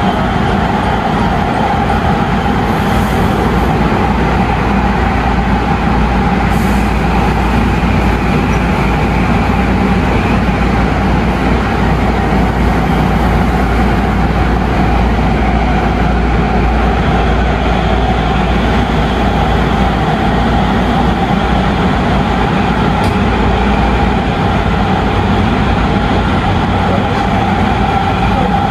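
Tobu 9050 series commuter train heard from inside the car as it runs through a subway tunnel at steady speed: a constant loud running roar with a steady humming tone from the traction drive.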